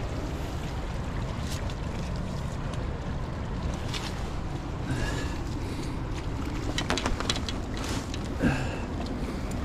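Steady wind rumble on the microphone, with scattered clicks and rustles from handling the landing net and fish about seven to eight seconds in, followed by a short low grunt.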